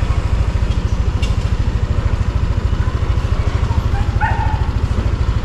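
Steady low throb of a motorcycle engine running, pulsing fast and evenly, with a brief dog bark about four seconds in.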